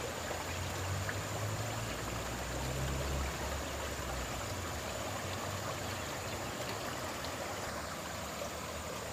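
Swift, shallow river current rushing steadily through and past a large bamboo fish trap, with a low rumble underneath for the first few seconds.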